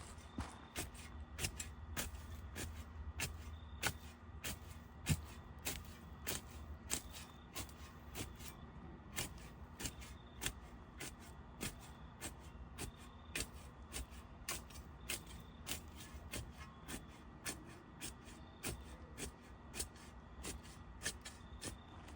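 Carrot ferns being chopped up by hand, a sharp snip or chop about twice a second in a steady working rhythm.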